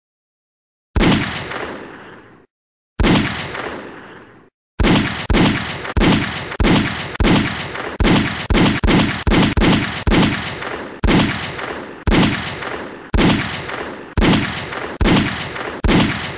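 Gunshot sound effects, each a sharp bang with a long echoing tail. Two single shots come about two seconds apart with dead silence between them, then a fast string of several shots a second, slowing to about one a second.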